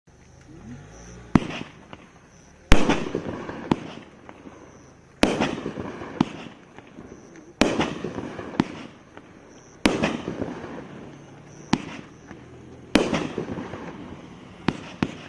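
A 500-gram consumer fireworks cake firing its shots: five or six sharp bangs, about one every two and a half seconds, each followed by a fading crackle, with smaller pops in between.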